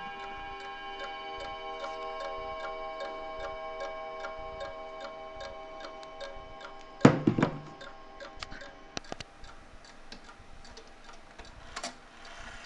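1950s Mauthe mantel clock ticking steadily, about three ticks a second, while ringing tones from its chime fade out over the first several seconds. A single loud knock comes about seven seconds in.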